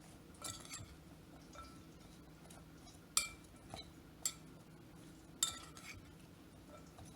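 A metal utensil clinking against a bowl several times at irregular intervals, each clink ringing briefly, as sweet potato strips are mixed with their flour and spice coating.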